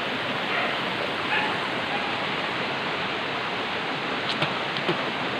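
Steady rush of stream water running over rocks, with a few faint clicks about four seconds in.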